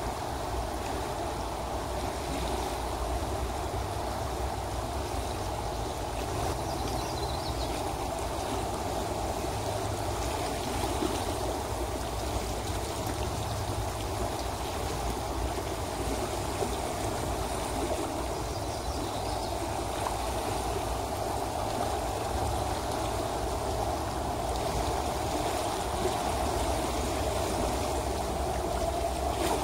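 Logan River current running over its rippled bed: a steady rush and babble of flowing water.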